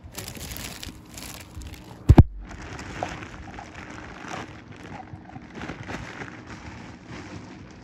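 Clear plastic packaging bag around a ceiling fan motor crinkling and rustling as it is handled. A single loud thump about two seconds in.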